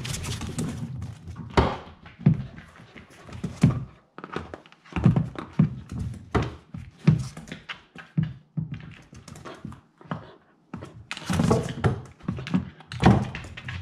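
Wobble Wag Giggle plastic toy ball being nosed and batted about on a hard floor by a fox terrier puppy: a run of irregular thunks and bumps.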